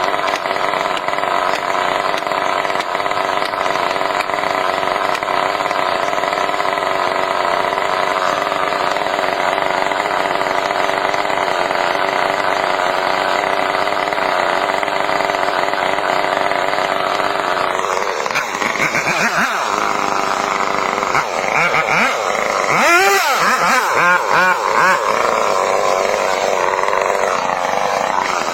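Engine running at a steady pitch for about eighteen seconds, then changing, its pitch sweeping up and down repeatedly toward the end.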